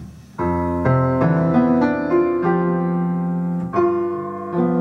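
Electric keyboard playing a piano sound: chords struck one after another about twice a second, then held and left to ring, with a new chord struck near the end.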